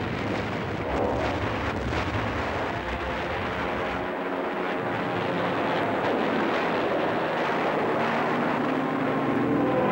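Warplane engines droning in a dense, noisy din, with sharp bangs about one, two and three seconds in. A heavy low rumble drops away about four seconds in.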